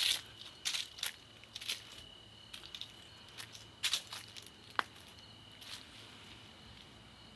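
Footsteps scuffing along a dirt path, a dozen irregular steps, over a steady high insect drone.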